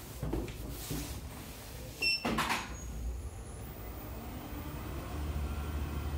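Landing door of a KALEA A4 screw-driven platform lift pushed shut, ending in a loud clunk a little over two seconds in, just after a brief high tone. Then the lift's drive gives a steady low hum that grows louder near the end as the platform starts down.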